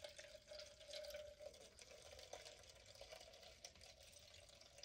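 Faint trickle of water being poured off soaked rice-flour batter into a plastic measuring jug.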